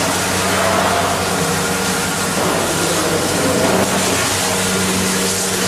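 Cheese vat's stirring frame and its drive running: a steady machine hum with an even rush of noise over it.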